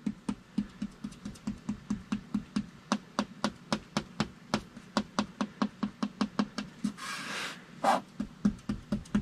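A hand knocking rapidly and repeatedly on a drywall wall, about three to four knocks a second, to find a wooden stud behind it by the change in sound. A brief rustle of the hand on the wall comes about seven seconds in.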